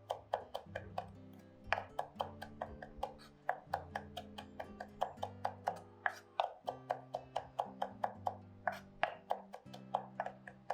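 A knife chopping on a cutting board in quick, uneven strokes, about four a second, over background music of held low notes.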